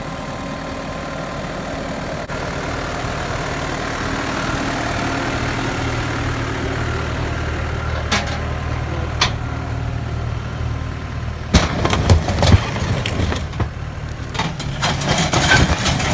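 An engine running steadily, with a low hum that builds slightly. In the last few seconds it is joined by irregular clattering and knocking.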